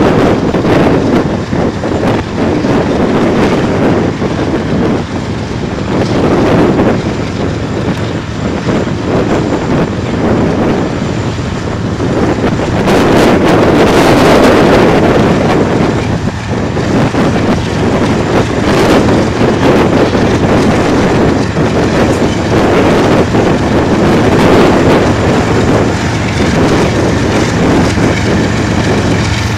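Diesel freight locomotives running as the train pulls past, the engine sound swelling loudest about halfway through as the lead unit goes by, with wind buffeting the microphone.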